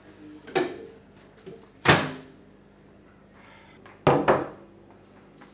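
Several sharp knocks and thuds of kitchen handling, the loudest about two seconds in. Near the end comes a quick double knock as a large glass bowl is set down on the table.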